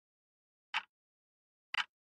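Clock ticking: two sharp ticks, one per second, with silence between them.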